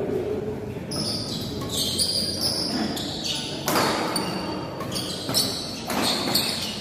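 Badminton doubles rally in a hall: rackets strike the shuttlecock in quick sharp hits, about one every half second to second, with short sneaker squeaks on the court and a murmur of spectators' voices behind.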